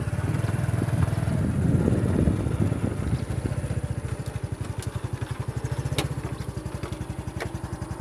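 Small motorcycle engine running at low revs, louder and rougher for the first three seconds, then settling into a steady, even chugging pulse.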